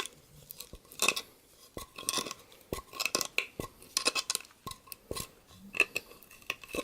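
Irregular small metal clicks and clinks of multi-tool pliers gripping and working a screw loose.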